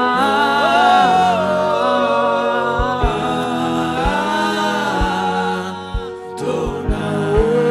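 Worship music: voices singing a slow, drawn-out melody, with low drum beats coming in about three seconds in.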